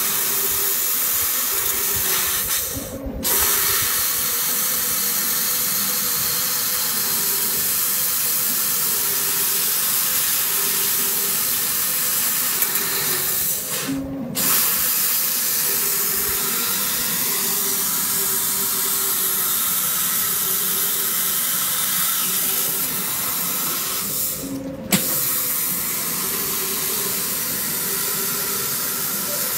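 Steady hiss of assist gas blowing from the nozzle of a laser cutting machine's head as it cuts a round tube turned in a rotary chuck, with a faint hum that comes and goes under it. The hiss breaks off briefly three times.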